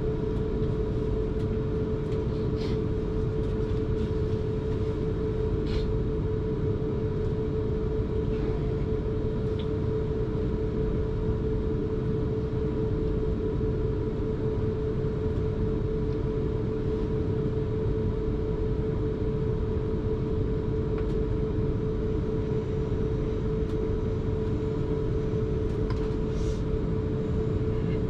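Electric suburban train running steadily between stations, heard from inside the carriage: a constant low rumble with a steady hum, and a few faint clicks.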